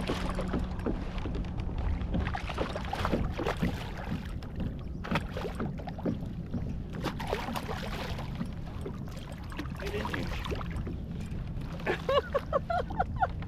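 Water splashing and irregular knocks and rustles on a kayak as a large redfish is fought to the side and brought aboard. A low steady hum stops about a second in.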